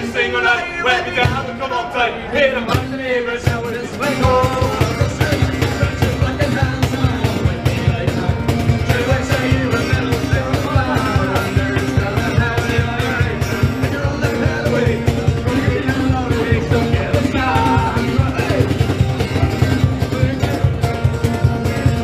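Rock music with guitar, a steady fast beat and singing.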